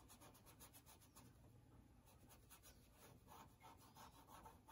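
Faint scratching and rubbing of a bristle paintbrush dragging oil paint across a canvas panel, in quick, irregular strokes.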